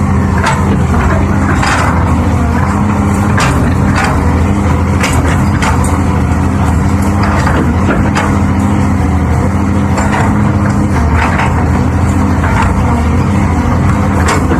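Heavy diesel machinery engine running steadily under load, with frequent sharp metallic clanks and knocks over the drone.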